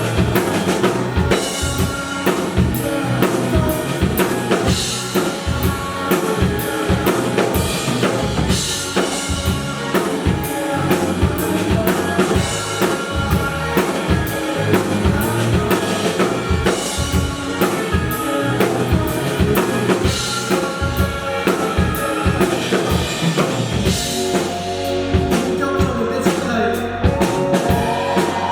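Live band music with a steady drum-kit beat, kick drum and rimshots driving under the other instruments.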